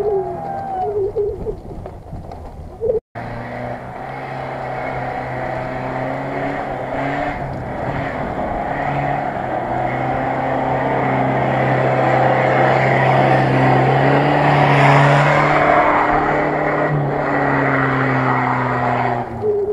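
Off-road 4x4 engine running under load at a fairly steady pitch, growing louder as the vehicle approaches and loudest about three-quarters of the way through. The sound cuts out for a moment about three seconds in.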